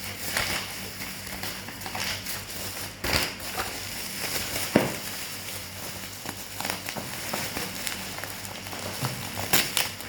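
Packaging being handled: plastic crinkling and rustling, with scattered sharp clicks and knocks. The sharpest clicks come about three seconds in and just before the five-second mark.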